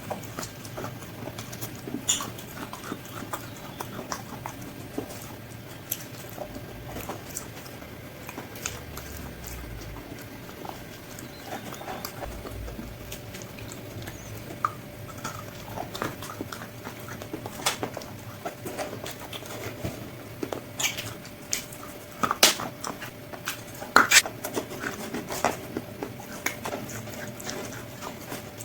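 Close-up crunching and chewing of crispy KFC spicy fried chicken: irregular sharp crunches, with several louder bites in the last third.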